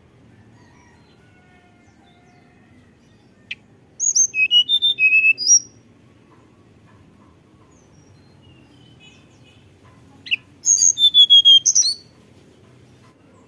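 A caged tledekan gunung, a blue-and-orange flycatcher, sings in two short bursts of high, quick whistled and twittering notes, the first about four seconds in and the second about ten seconds in.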